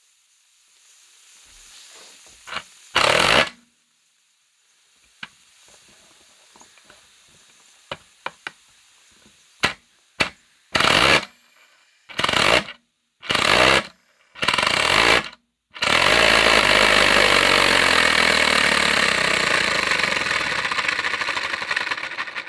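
3D-printed compressed-air engine with a BB-ball valve: a string of short loud bursts of running that each stop within a second, then about six seconds of continuous fast running with a rapid rattling chatter, fading slightly near the end. The builder thinks its rear bearing part is unscrewing itself and letting the bearing be pushed out the back.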